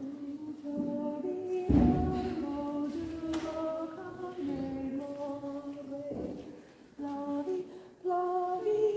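A woman's voice singing unaccompanied, a string of held notes one after another with short breaks, in a church's echoing acoustic. A heavy thump comes just under two seconds in.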